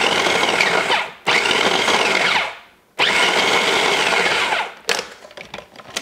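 Food processor pulsed three times, its motor whirring up and winding down with each pulse as the blade cuts cold butter into flour for pie crust. A few light plastic clicks near the end.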